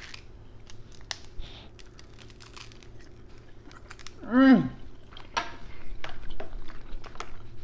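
Close-up eating sounds of king crab legs: small clicks and cracks of shell being picked apart, with chewing, busier in the second half. About four and a half seconds in, one brief vocal sound of enjoyment rises and falls in pitch.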